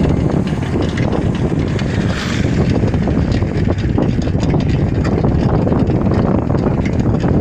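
Steady rush of wind buffeting the microphone over engine and road noise from a vehicle on the move.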